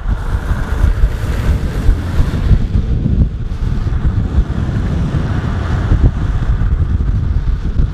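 Wind buffeting the microphone: loud, gusty rushing noise heavy in the low end, with a fainter hiss above it.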